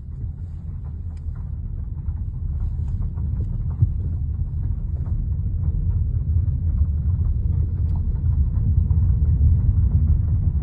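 Honda Civic sedan driving, with steady low road rumble that slowly grows a little louder and a few faint, short dull knocks from the suspension, about 1 and 4 seconds in. The knocks are the car's unexplained suspension knocking, whose cause has not been found.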